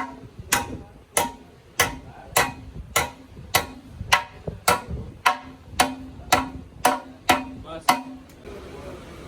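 Hammer striking a metal part of a bus gearbox, about fifteen blows at a steady pace of a little under two a second, each ringing briefly. The blows stop about eight seconds in.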